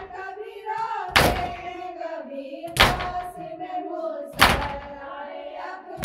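Matam: mourners beating their chests with open hands, a sharp slap about every second and a half, four times. Voices chant a nauha lament between the strikes.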